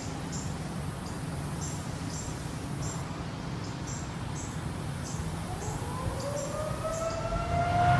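Insects chirping at about two high chirps a second over a low outdoor rumble. From about five and a half seconds in, a Federal Signal 2001-130 outdoor warning siren faintly begins winding up, its tone rising in pitch and growing louder.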